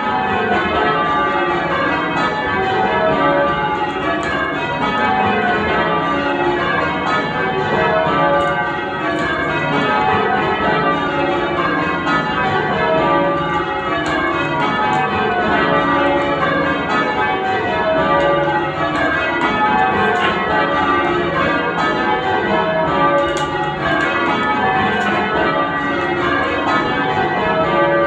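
Church tower bells rung in English change ringing: the bells strike one after another in quick, steady descending rows that repeat without a break.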